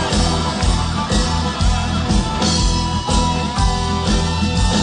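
Live rock band playing an instrumental passage between sung lines: electric guitar over bass and a steady drum beat.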